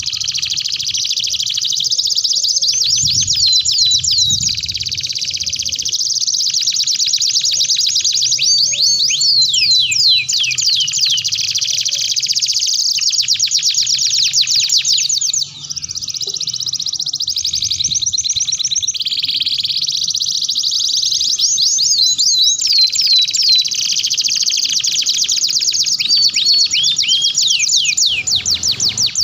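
Domestic canaries singing a long, continuous song of rapid trills and rolls made of fast repeated downward-sweeping high notes, with a short break about halfway through.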